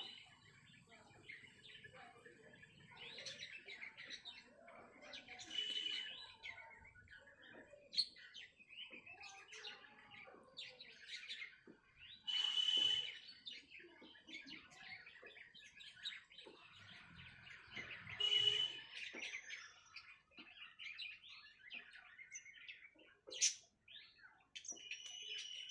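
Birds chirping and calling, with a louder call of about a second repeating roughly every six seconds.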